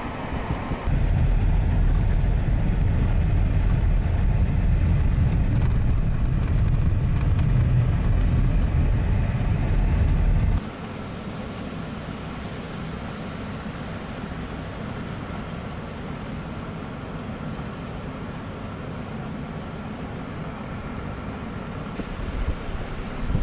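Steady road and wind noise of a vehicle driving on a snowy highway, a loud low rumble that drops abruptly about ten seconds in to a quieter, steady hiss.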